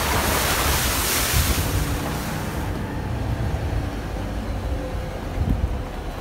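Four-wheel drive travelling along a rough dirt bush track: a steady low rumble of engine and suspension, with a loud hissing rush of wind on the microphone over the first two or three seconds that then dies away.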